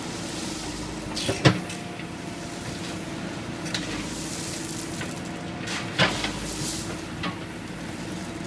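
Backhoe engine running with a steady hum under a hissing noise, broken by sharp knocks: a loud one about one and a half seconds in, another about six seconds in, and a couple of lighter ones.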